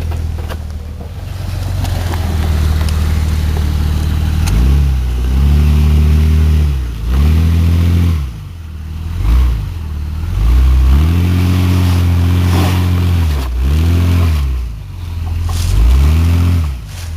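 Jeep Grand Cherokee's engine revving up and dropping back to idle about seven times, with one longer held rev in the middle, as the 4x4 works over rough off-road terrain.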